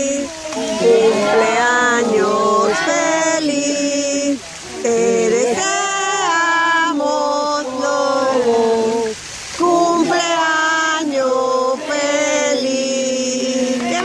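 Children and a woman singing a song together in held, melodic phrases.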